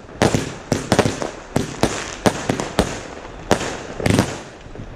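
A 127-shot Kimbolton Hell Yeah! firework cake (20 and 25 mm tubes) firing: about a dozen sharp bangs in quick, irregular succession, with short lulls near the middle and again near the end.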